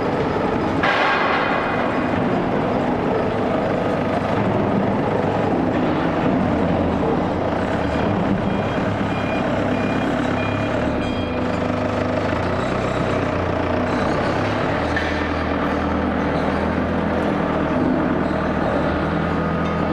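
Loud, steady mechanical noise of heavy machinery, with a few brief high tones near the middle.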